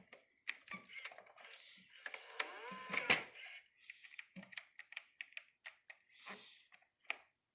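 Irregular plastic clicks and knocks from a portable VCR being handled, its buttons and latches pressed, with a brief rising whine about two and a half seconds in and a louder knock just after.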